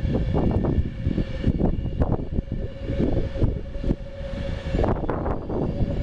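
A train passing at close range: a heavy, uneven rumble with many short knocks, and a steady tone holding from about a second in until nearly five seconds.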